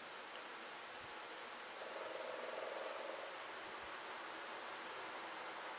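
A faint, steady, high-pitched pulsing trill runs throughout, with a brief low hum about two seconds in.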